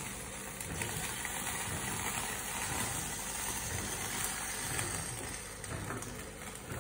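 Pan of chicken soup heating on a portable gas stove: the burner's steady flame noise with the broth bubbling toward the boil.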